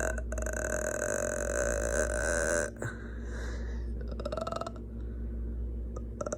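A person making weird drawn-out burping noises: one long held, rattly burp that breaks off about two and a half seconds in, a softer one after it, and another starting near the end.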